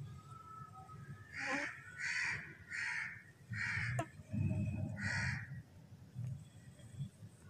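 A crow cawing: four harsh caws in quick succession, then a fifth after a short pause, over a low rumble.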